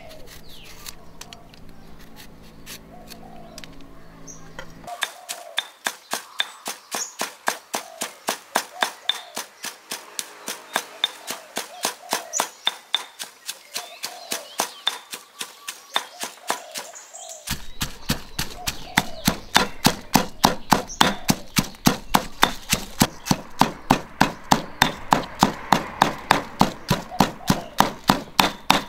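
Stone pestle pounding dried red chillies and other curry-paste ingredients in a stone mortar. It is an even beat of about three strikes a second that starts about five seconds in and gets louder later on.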